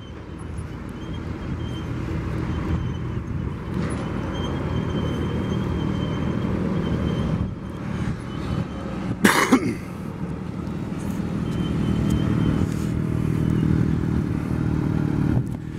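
Motorcycle engine running at low speed, growing louder as the bike rides closer. About nine seconds in there is a short vocal sound, like a cough.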